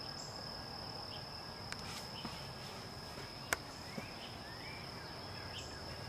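Outdoor ambience: an insect's steady, high-pitched trill, with a few faint rising chirps and a single sharp click about three and a half seconds in.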